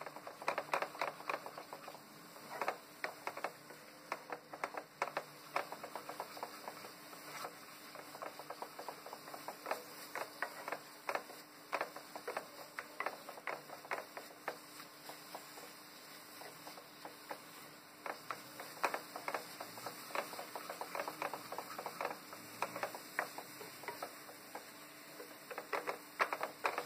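Wooden spatula stirring and scraping thick masala in a frying pan, giving quick, irregular clicks and taps throughout, over a faint steady hum. The masala is at the end of its frying, with the oil separating out.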